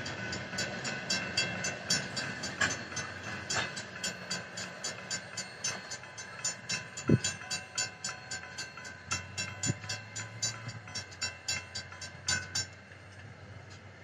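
Railroad crossing bells, a mix of mechanical and electronic bells, ringing with rapid repeated strikes while the tail of a freight train of tank cars rolls through. The bells cut off about twelve and a half seconds in, the signal that the gates are starting to rise.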